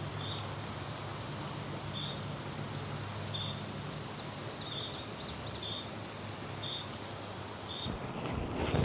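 Insects calling: a continuous high-pitched drone with a short chirp repeating about every second and a half, over a steady background hiss. Near the end the drone cuts off and a few knocks are heard.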